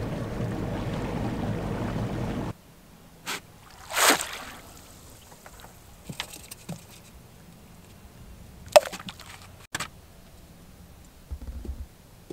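Boat under way on a river, with a steady rush of wind and water that cuts off after about two and a half seconds. Then a splash about four seconds in as a wire crab pot is dropped into the water, followed by faint drips, small knocks and a sharp knock near nine seconds.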